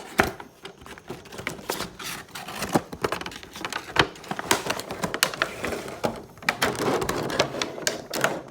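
Plastic toy packaging crackling and clicking at an irregular pace as it is handled and cut open with a knife, with a denser rustling stretch near the end.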